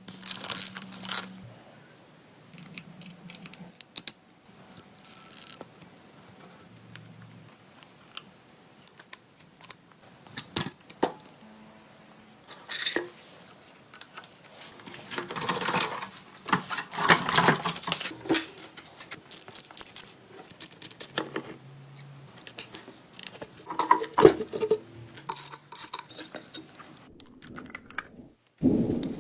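Irregular clinks, rattles and scrapes of small metal parts and hand tools being handled, with a few longer scraping or rubbing passes.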